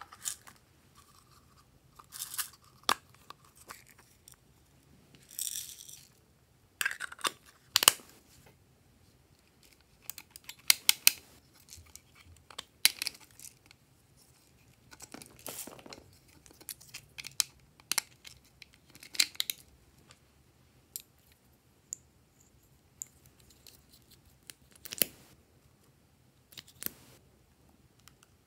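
Hands handling small plastic toy containers and tubes: scattered clicks and taps of lids and caps, with brief crinkling and scraping, separated by quiet gaps.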